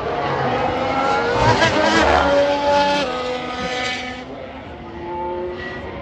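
A Formula 1 car's turbocharged V6 hybrid engine passing at speed into Turn 1. The engine note rises as the car nears, then drops in quick steps about three seconds in as it downshifts under braking. It fades after about four seconds, then picks up faintly again as the car accelerates out of the corner.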